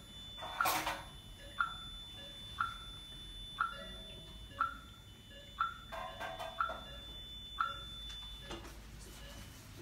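Cyclo G6 glaucoma laser console beeping at an even pace of about once a second while the laser probe treats the eye, with a thin steady high tone underneath that stops near the end. There is a brief louder rustle about a second in.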